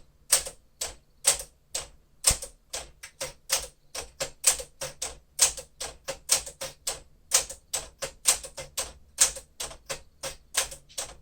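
1956 Smith-Corona Clipper manual typewriter being typed on: a steady, uneven run of sharp key and typebar strikes, about three to four a second.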